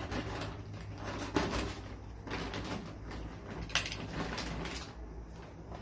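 Clear plastic bag of grain crinkling and rustling as it is cut open and handled, in several short bursts, the loudest about one and a half and four seconds in, over a steady low hum.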